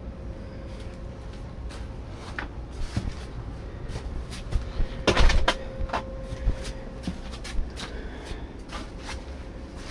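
A series of knocks, clicks and clatter from something being handled, loudest in a cluster about five seconds in, over a steady faint hum.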